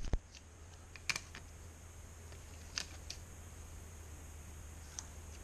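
Scissors snipping handlebar tape: a few separate sharp clicks, about a second in, near three seconds and again near five seconds, over a steady low hum.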